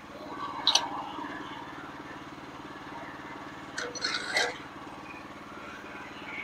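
Small gasoline engine of a portable bandsaw sawmill idling steadily, with a few sharp metal clinks and knocks about a second in and again around four seconds in.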